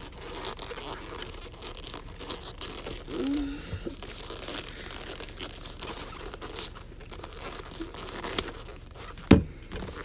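Padded boxing gloves rubbing and crinkling against each other and against a Rubik's cube as it is fumbled and turned, with scattered small clicks and a sharp knock about nine seconds in.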